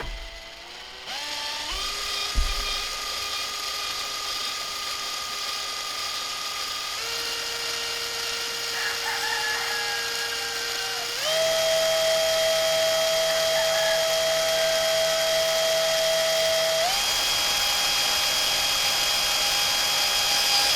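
Power drill motor whining as a larger bit drills out a hole in a metal pipe strap. The pitch steps up several times and the sound gets louder about halfway through.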